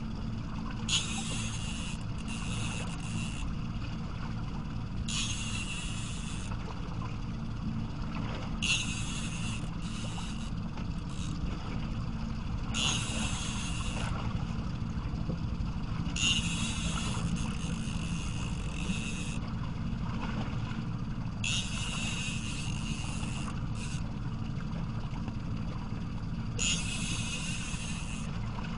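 A fishing reel being cranked in about nine short bursts of one to three seconds each, reeling in a hooked fish on a bent rod. Under it runs a steady low hum from the boat's outboard engine idling.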